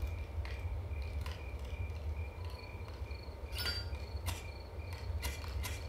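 Faint high chirping, pulsing evenly about three times a second, over a steady low hum, with several sharp clicks and clinks, the loudest a little past the middle.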